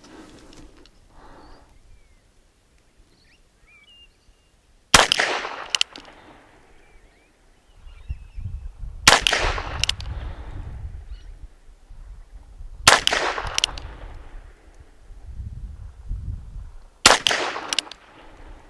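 Ruger Wrangler .22 LR single-action revolver fired four times at an even pace, about four seconds between shots, loaded with CCI Standard 40-grain solid rounds. Each shot is a sharp crack followed by a fainter crack about half a second later. Faint bird chirps come before the first shot.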